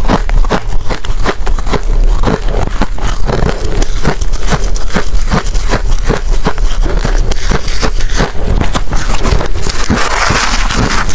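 Ice being bitten and chewed close to the microphone: a dense run of sharp, loud crunches, several a second, with a rougher, hissier crunching near the end.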